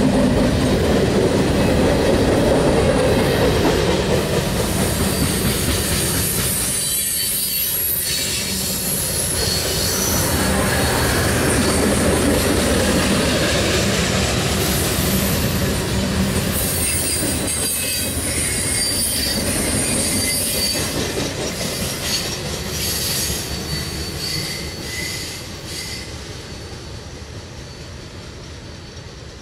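Railroad cars rolling past, with steel wheels squealing and clattering on the rails. The sound fades steadily over the last several seconds as the train moves away.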